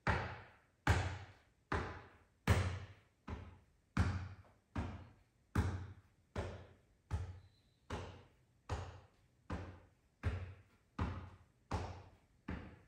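Fists thumping on the chest in a steady rhythm, about one thump every 0.8 seconds, each a sharp knock that quickly fades.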